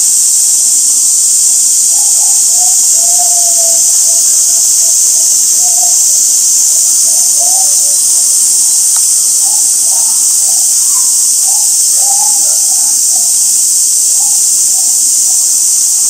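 Cicadas buzzing in a loud, steady, high-pitched chorus.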